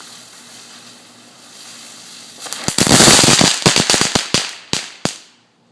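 A firework hisses steadily, then bursts into about a second of loud, rapid crackling, followed by a string of separate sharp pops that thin out and stop.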